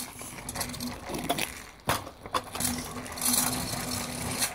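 Stunt kick scooter rolling on rough asphalt, its wheels making a grinding rattle with scattered knocks of the deck and wheels, the sharpest about two seconds in.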